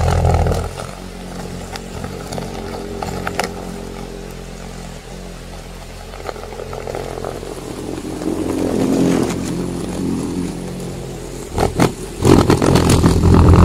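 Machine running with a steady low hum and scattered knocks, captioned as a rock drill at work underground. It grows louder about twelve seconds in.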